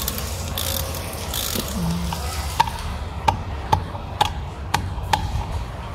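Ratchet wrench and metal parts worked on a car's steering column: a few rasping strokes in the first second or so, then about eight light metallic clinks, roughly two a second, over a low steady hum.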